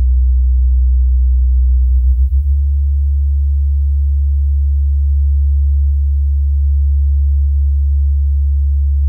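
Loud, low electrical hum. It is rough and fluttering at first, wavers briefly about two seconds in, then settles into a steady, pure tone.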